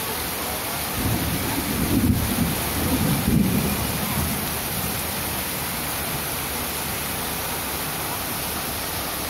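Heavy rain falling on a wet paved street, a steady hiss. A rumble of thunder swells about a second in, peaks twice and dies away before halfway through.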